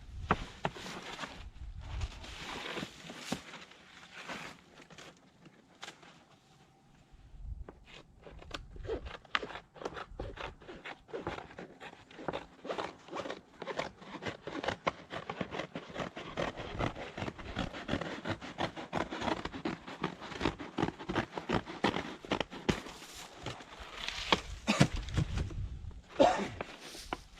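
Stiff felt roofing paper rustling and crackling in quick, irregular scrapes as it is handled and wrapped around a wooden beehive, busiest through the middle and quieter for a few seconds early on.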